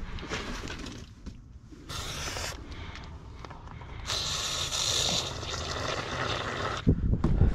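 An aerosol spray can hissing as it is sprayed into the end of a cable conduit: a short burst about two seconds in, then a steady spray of nearly three seconds starting about four seconds in. A couple of handling thumps come near the end.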